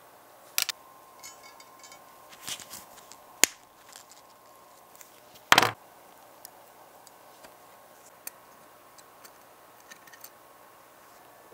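Light metallic clicks and taps of steel tweezers and a tiny coil spring being handled and fitted into a model car chassis. There are a few sharp clicks in the first few seconds, one louder snap about five and a half seconds in, then scattered faint ticks.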